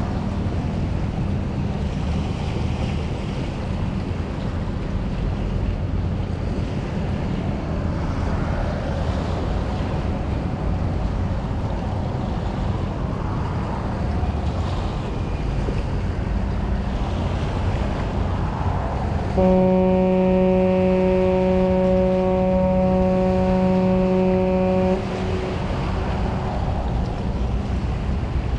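A ship's horn sounds one long, steady blast of about five and a half seconds, starting about two-thirds of the way in, over a steady rush of wind and water.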